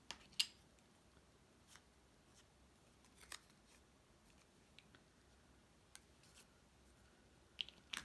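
Quiet handling of cardstock craft pieces: a scattering of short, sharp clicks and snips, loudest twice in the first half second and twice more near the end.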